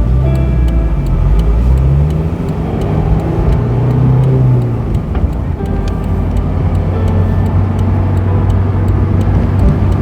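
Honda S2000's 2.2 L F22C1 four-cylinder engine under way, its pitch rising and falling over the first five seconds or so, then holding steady at a cruise.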